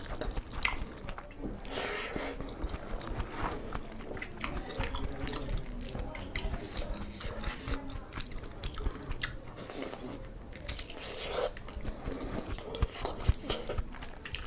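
Close-miked chewing and biting of a meal of rice and spicy egg curry: wet mouth smacks with irregular clicks and occasional crunchy bites.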